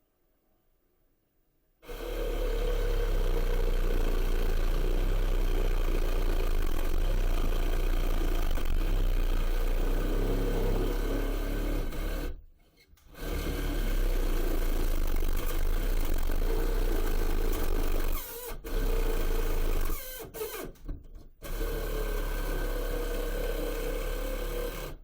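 A handheld power saw cutting into drywall, starting about two seconds in and running in long stretches with a few short stops between.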